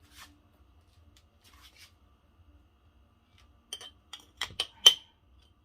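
A quick run of sharp clinks and taps about four seconds in, the last one loudest: kitchen utensils knocking against glassware.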